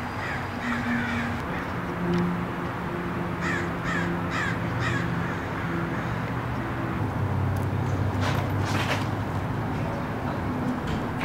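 Birds calling outdoors: a quick run of about four short calls near the middle, with a few more near the start and about two-thirds in, over a steady low hum.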